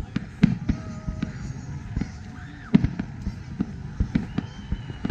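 Fireworks display: aerial shells bursting in an irregular run of sharp bangs, about a dozen, at times several in quick succession.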